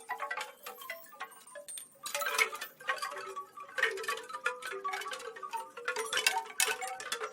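Wind chimes ringing, many metal tones struck in irregular, overlapping clusters and left to ring; sparse at first, fuller and louder from about two seconds in.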